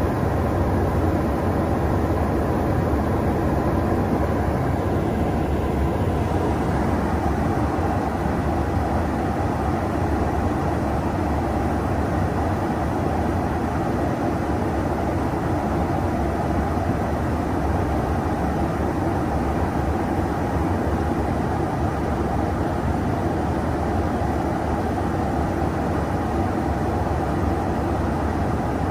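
Steady in-flight drone and air rush of a KC-135 Stratotanker, heard from inside the aircraft at the boom operator's station, with an even low hum and no change in level.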